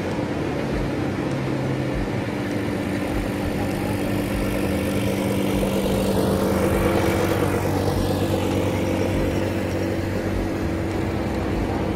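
Quad bike (ATV) engine running steadily close by, getting louder toward the middle and then easing off, over the wash of breaking surf.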